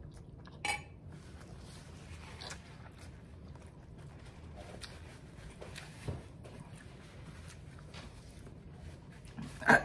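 Close-miked eating sounds: a quick noodle slurp under a second in, then faint chewing and the rustle of a paper napkin wiped over the mouth. There is a short, louder mouth sound near the end.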